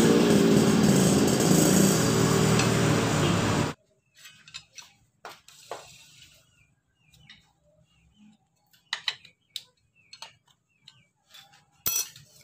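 A loud steady noise cuts off suddenly about four seconds in. Then scattered small metal clicks and taps follow as a screwdriver and spanner set the clutch adjuster on an old Honda Supra engine.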